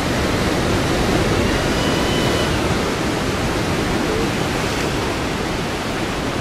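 Ocean surf breaking and washing over a rocky shore, a steady, even rush of white-water noise.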